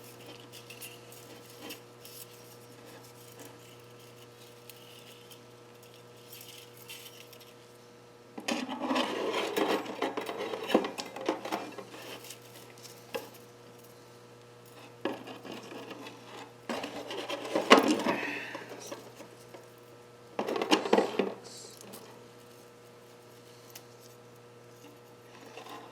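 A compression piston ring's end gap being filed against a stationary file: rasping strokes in three spells, starting about a third of the way in, again past the middle and briefly near the end. A steady low hum lies underneath.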